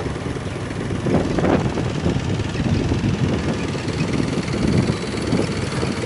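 Motorboat engine running steadily under way, a low rumble mixed with wind buffeting the microphone.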